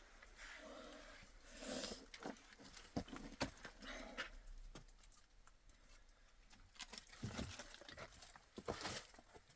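Faint farm-animal sounds, short calls and movement, mixed with scattered sharp clicks and knocks.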